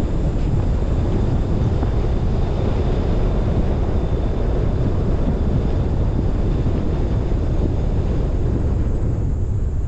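Wind buffeting the microphone of a roof-mounted GoPro Hero10 on a moving car, with tyre and road noise underneath. A steady, heavy rush that thins a little near the end.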